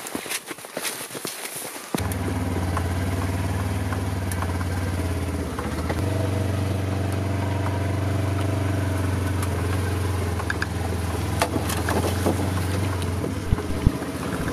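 A motor vehicle's engine running steadily, cutting in suddenly about two seconds in. Before it, light crackling and footsteps.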